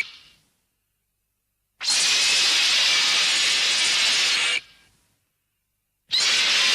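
Showa-era MechaGodzilla film sound effect: a loud, hissing mechanical blast that starts abruptly, holds steady for nearly three seconds, then cuts off with a short fading tail. Another blast starts near the end, and the tail of an earlier one fades out at the start.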